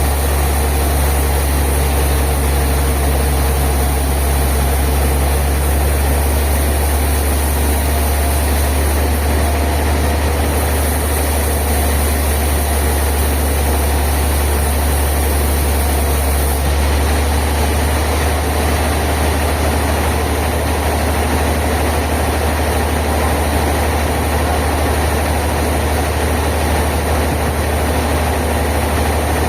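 Sawmill machinery running steadily with an even, low drone, without the rise and fall of a cut.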